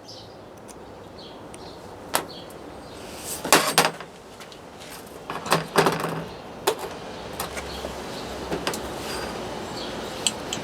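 Handling of tools and parts at a workbench: scattered knocks and clicks, in two clusters about three and a half and six seconds in.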